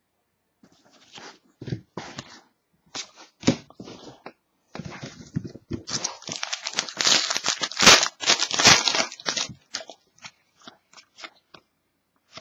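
Hands handling trading cards with light clicks and rustles, then a foil trading-card pack crinkled and torn open in a dense burst of crackling that is loudest in the middle. Light clicks follow as the cards are slid apart.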